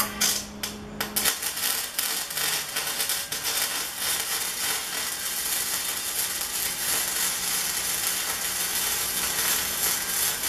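Electric arc welding on steel tube: the arc strikes in a few short starts during the first second, then runs as a continuous crackle while a weld is laid on a leg joint of a steel frame.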